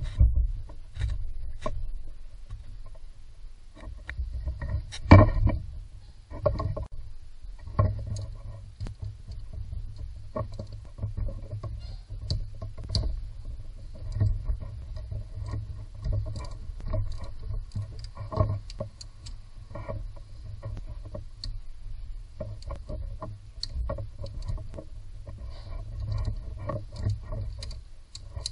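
Hand-work noises in a car's engine bay: irregular clicks, knocks and rattles of hoses and parts being handled, with a louder knock about five seconds in.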